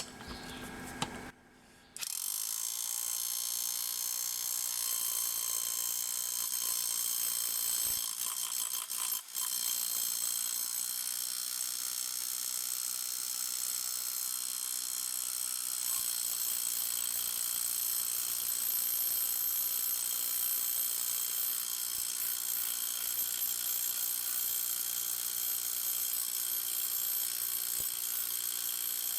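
SDS Plus rotary hammer drill in hammer-only mode, running steadily as it drives a ground rod into rocky ground. It starts about two seconds in and pauses briefly around nine seconds.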